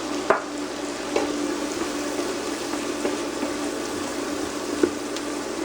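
Zucchini, squash and garlic sizzling in olive oil and butter in a frying pan, with a few sharp clicks of a utensil against the pan and a steady low hum under it.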